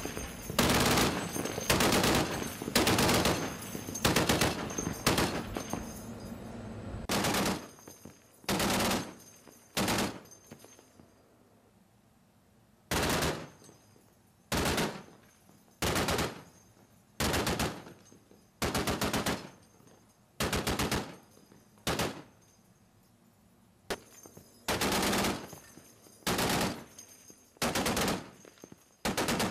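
Twin-mounted M2 Browning .50-caliber machine guns firing in short bursts, one after another. The bursts come close together for the first several seconds, then further apart with a pause of about two seconds near the middle.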